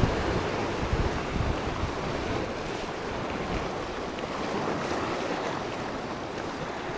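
Sea surf washing against shoreline rocks, with wind buffeting the microphone; a steady wash of noise.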